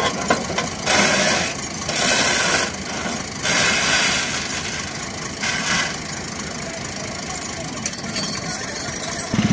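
Massey Ferguson 240 tractor's three-cylinder diesel engine chugging rapidly under heavy load as it drags an overloaded trailer. Several loud bursts of rushing noise rise over it during the first six seconds.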